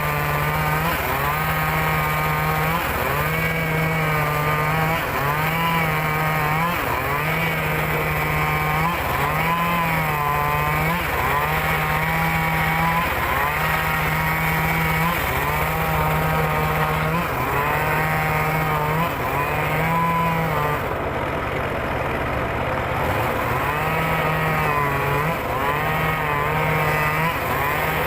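Engine-driven circular saw ripping timber lengthwise, the motor and blade running steadily. The blade's whine dips and recovers over and over as it bites into the wood.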